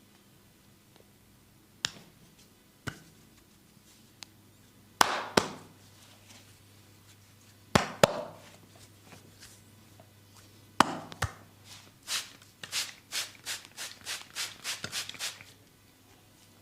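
Hand percussion of a barber's massage: a few light clicks, then loud hand strikes landing in pairs, then a quick run of about a dozen chopping strikes, roughly four a second, that stops near the end.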